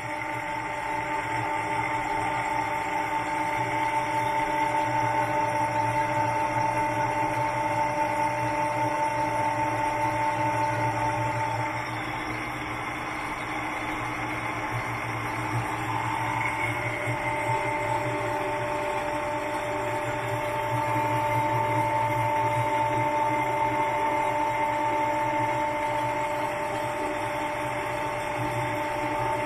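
SEMIRAL SM 45 radial drill running with its spindle turning and the automatic power feed lowering the quill: a steady gear whine over a motor hum.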